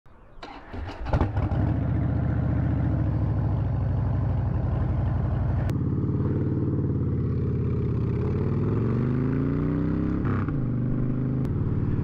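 Motorcycle engine coming up over the first two seconds and running steadily. It then rises in pitch as the bike accelerates, and drops at a gear change just after ten seconds in.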